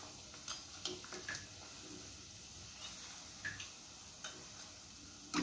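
Breaded chicken drumstick deep-frying in hot oil in a kadai: a faint sizzling hiss with a few sharp, scattered pops and crackles.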